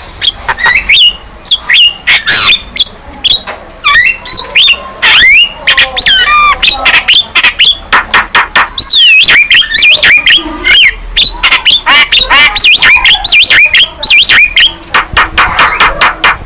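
Young Javan myna singing vigorously: a rapid, unbroken run of harsh squawks, clicks and whistled rising and falling notes.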